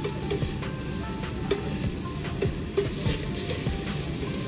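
Slices of beef sizzling on a yakiniku grill grate, a steady frying hiss with scattered small pops.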